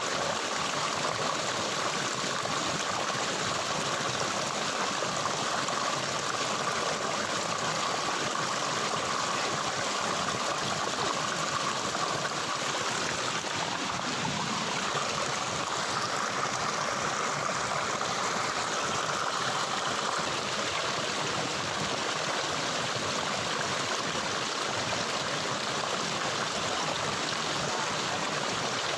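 Water flowing in a stream: a steady, even splashing flow that holds the same level throughout.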